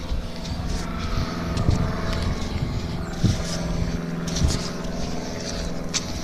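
An engine running steadily with an even hum, and short crackles now and then that fit footsteps through dry leaves.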